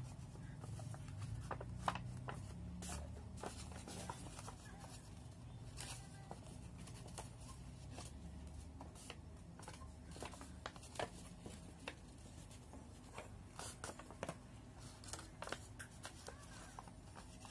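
Origami paper being handled and folded: scattered light rustles and crisp creasing clicks over a low steady hum.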